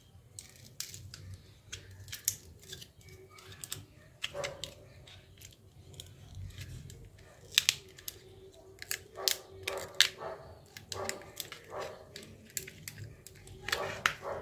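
Irregular sharp clicks and snaps of hard plastic as a Nokia 1209's housing and keypad parts are handled and pried apart with a thin metal tool.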